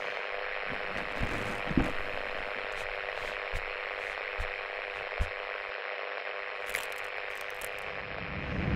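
Steady static hiss with a faint steady hum, broken by a few soft low thumps.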